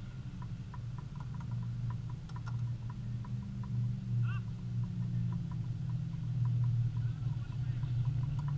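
A low, steady engine drone from an idling vehicle, growing louder near the end, with light ticks about three times a second and a brief chirp about four seconds in.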